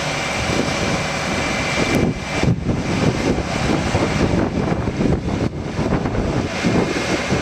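Krupp truck-mounted crane's diesel engine running steadily under load as it hoists a tall wall panel. From about two seconds in, uneven gusts of wind buffet the microphone.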